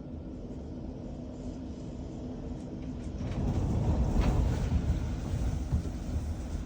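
Windstorm gusts buffeting the house, heard from inside as a low rumble that swells about three seconds in, peaks with a few knocks, then eases off.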